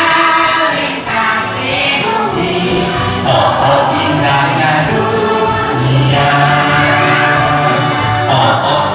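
Music with singing voices over a steady percussion beat.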